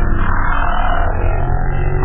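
Ambient synthesizer music with a steady low drone.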